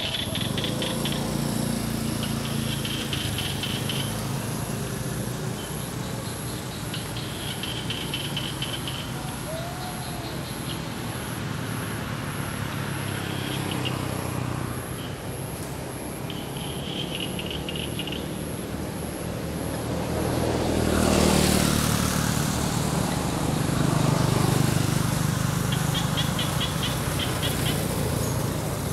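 Outdoor ambience with a steady low rumble of motor traffic. A vehicle passes about two-thirds of the way through, its noise swelling and fading, and a second swell follows a few seconds later. Short rattling insect trills recur every few seconds over a faint steady high whine.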